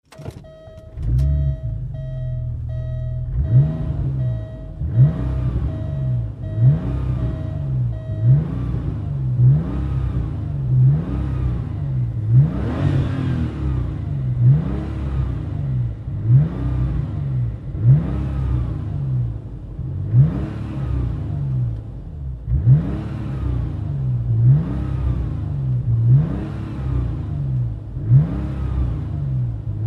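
Porsche Turbo S engine starting about a second in, then idling and blipped in repeated short revs, one about every one and a half to two seconds. An electronic warning chime beeps in a steady pulse for the first eight seconds or so.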